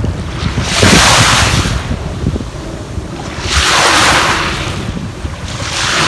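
Sea waves washing in, swelling three times (about a second in, near four seconds, and at the end), with wind rumbling on the microphone.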